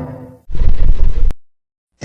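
A creature sound effect: a short, loud, low, rasping burst lasting under a second that cuts off with a click, followed by dead silence.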